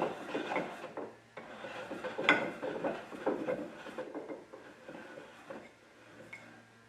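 Wooden tail vise worked along its freshly waxed sliding parts: wood sliding and rubbing with light knocks and clatter, one sharper knock about two seconds in, the sounds thinning out near the end.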